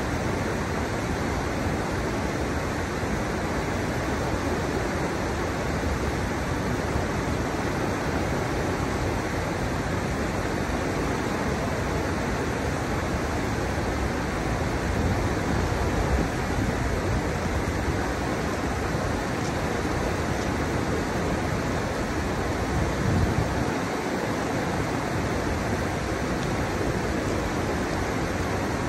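River water pouring over the steps of a stepped riverbed: a steady, even rushing.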